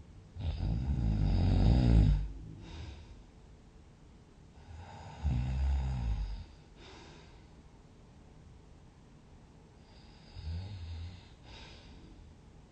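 A sleeper snoring: three snores, a long loud one about half a second in, a shorter one around five seconds in and a fainter one near the end, each followed by a soft breath.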